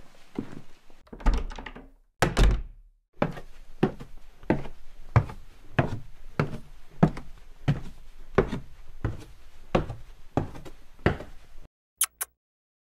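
Footsteps tapping, then two heavy thumps about a second apart, then a steady run of footsteps climbing stairs, about three steps every two seconds. Near the end come two quick kissing sounds.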